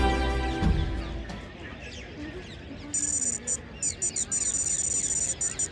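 Background music fading out in the first second, then many birds chirping. From about three seconds in, a steady high-pitched whine broken by brief gaps sits over the birds and is louder than them.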